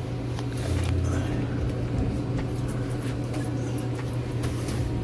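Drink bottles and cans clicking and knocking as they are handled while a vending machine is restocked, over a steady low hum.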